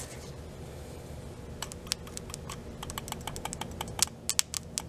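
Irregular sharp, light clicks, getting thicker through the second half, as a test lead's clip is worked against the terminals of a seized motorcycle fuel pump; the pump motor itself makes no sound because it is frozen up.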